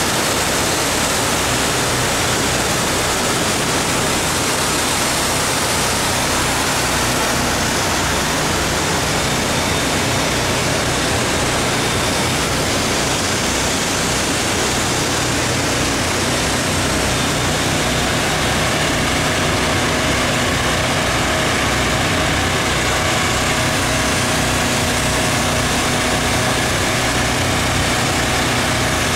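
Engine-driven pressure washer running steadily, with the hiss of its high-pressure water spray over a low engine hum.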